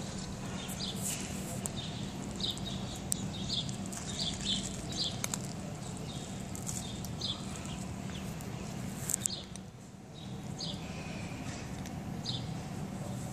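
A tuxedo cat chewing dry cat kibble, with sharp crunching clicks now and then. Small birds chirp in short, high, repeated notes, about one every half second, over a steady low hum.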